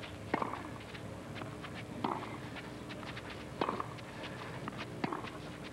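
Tennis ball hit back and forth in a baseline rally on a green clay court: four racket strikes about a second and a half apart, with softer ticks between them.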